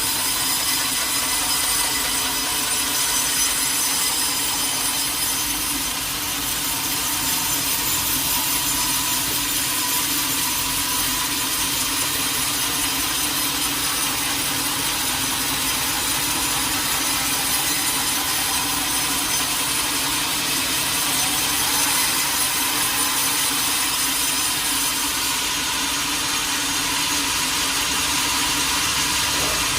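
A sawmill blade cutting lengthwise through a large teak log: a steady sawing noise, with high, even tones ringing over it.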